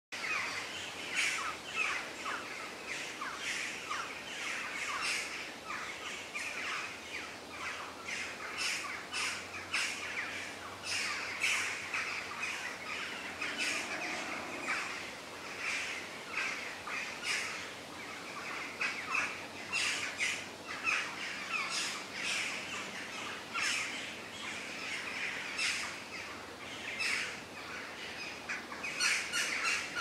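A chorus of many birds chirping and calling, short calls overlapping one another in quick succession without pause.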